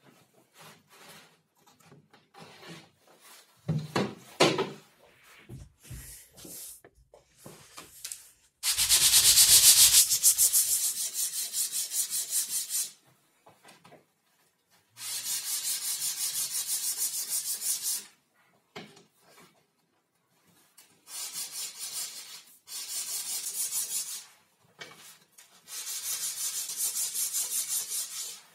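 A hand rubbing quickly back and forth over a film-faced plywood sled board and its wooden runner, about four strokes a second, in several bursts of a few seconds each. Scattered knocks and clicks in the first seconds, and a louder stretch of rubbing about nine seconds in.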